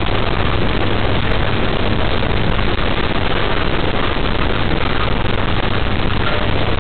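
Steady loud hiss with a low hum underneath, the unchanging noise floor of a security camera's audio.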